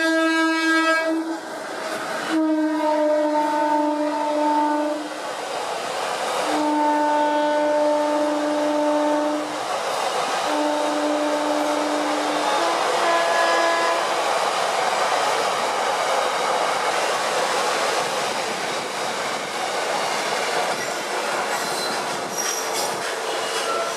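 Horn of a WAG-7 electric locomotive sounding four long blasts and then a few short toots over the first fourteen seconds as it passes, followed by the steady rumble and clatter of container wagons rolling by.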